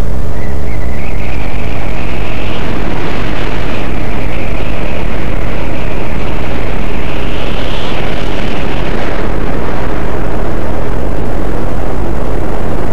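Yamaha Exciter jet boat running at speed, its engine and jet drive a loud, distorted, continuous noise with a heavy low rumble. A whine climbs in pitch over the first eight seconds, then falls away about nine seconds in.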